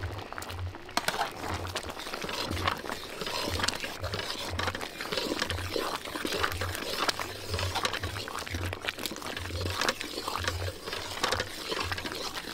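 Busy kitchen clatter: metal utensils, pots and dishes knocking and scraping, with many quick sharp clicks throughout.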